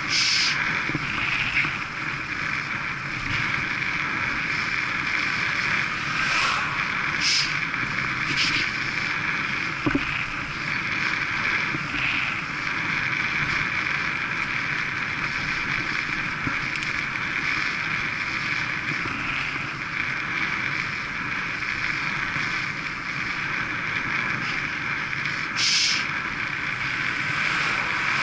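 Steady rush of wind over a bike-mounted camera's microphone, with road-bike tyres humming on tarmac at about 25 mph. A few brief louder bursts break through, one right at the start, two around seven and eight seconds in, and one near the end.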